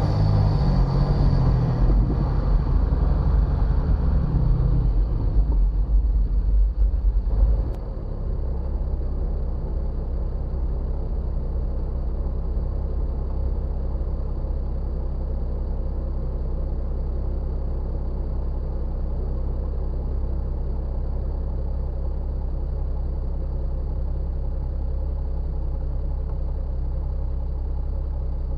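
Jeep Wrangler Rubicon rolling along a dirt trail, its engine and drivetrain rumbling, coming to a stop about seven seconds in with a short knock. After that the engine idles steadily.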